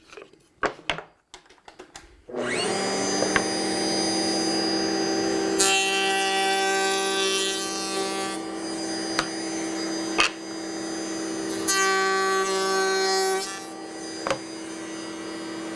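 Table-mounted router with a drawer lock bit starting up about two seconds in and running at a steady pitch. It cuts two workpieces in turn; the sound gets rougher and louder during each pass, the first lasting about three seconds and the second about two. A few light wooden knocks come before it starts, as the stock is handled.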